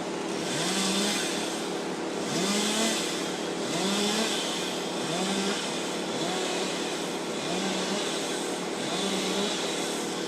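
Chainsaw revving up over and over, its pitch climbing each time, about every second and a half, with a burst of cutting hiss on each rev, over a steady engine hum.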